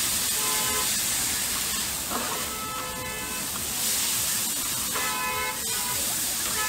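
Noodles sizzling on a hot flat-top griddle as they are tossed with metal spatulas. Several short, steady horn-like tones sound over the sizzle, four times.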